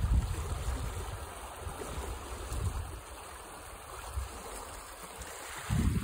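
Foamy stream rushing along a shallow earthen channel, a steady sound of running water. Wind buffets the microphone with low rumbles in the first second and again near the end.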